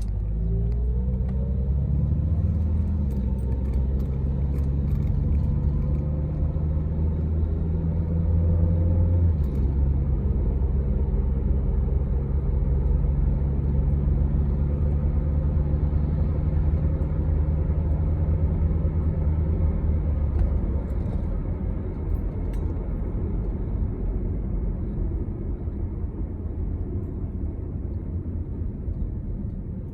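A 2002 Honda CR-V's four-cylinder engine running. Its pitch climbs in the first second and then holds steady, the tone shifts a little about nine seconds in, and it runs lower and quieter after about twenty seconds. The engine has misfire and catalyst (P0420) codes and starts poorly.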